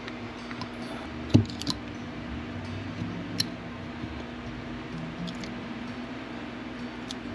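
Carving knife cutting into a basswood block by hand: scattered small clicks and snicks of the blade in the wood, with one louder knock about a second and a half in. A steady low hum runs underneath.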